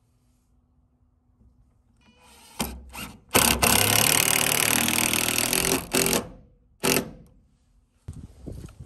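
Cordless drill driving a screw into wood: two short blips of the trigger, a run of about three seconds as the screw goes in, and one more short burst to seat it.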